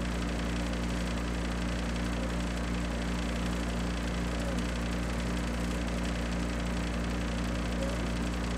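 A steady low hum with several constant low tones over an even hiss, unchanging throughout.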